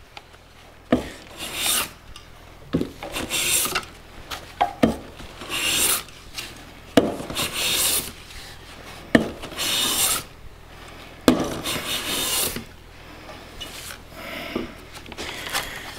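Steel bench hand plane taking repeated strokes along a thin wooden veneer, each stroke a sharp knock as the plane sets down followed by a hissing cut as the shaving peels off, about one every second or two. The passes thin the veneer's still-thick end toward an even thickness.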